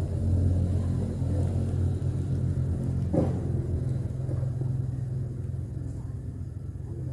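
A steady low mechanical hum, like a running engine, fading slightly towards the end, with one brief higher sound about three seconds in.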